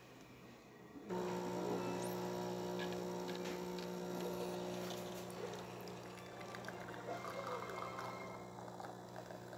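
DeLonghi La Specialista espresso machine's pump switching on about a second in and humming steadily as it pulls a shot, with espresso running into a glass.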